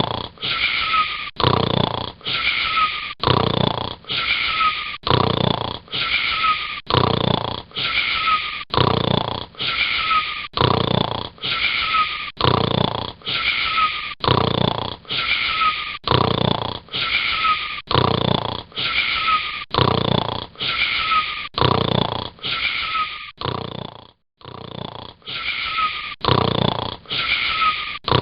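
Rhythmic snoring, about one wheezy, whistling breath a second, with a brief break near the end.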